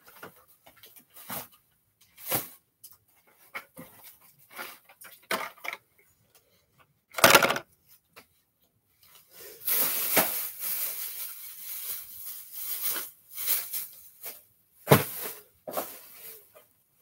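Items being handled and set down on a wooden table: scattered knocks and clicks, a louder sharp sound about seven seconds in, several seconds of rustling from about the middle on, and a sharp knock near the end.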